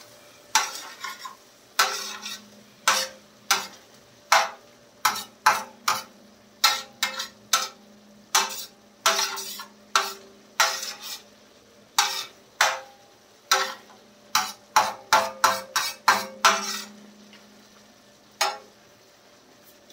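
Slotted steel spatula scraping and stirring fish masala across a large steel tawa in short repeated strokes, about one or two a second, with the masala sizzling under it. The strokes stop about 17 seconds in, with one last scrape a second or so later.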